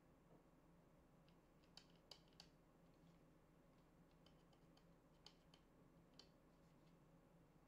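Near silence, broken by several faint clicks and light taps from hands handling a plastic LED tube light, bunched around two seconds in and again between four and six seconds.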